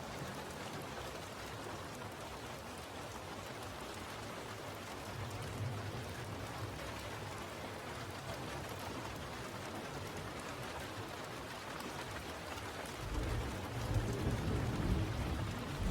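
Steady rain falling, an even hiss of drops. About thirteen seconds in, a low rumble of thunder swells beneath it.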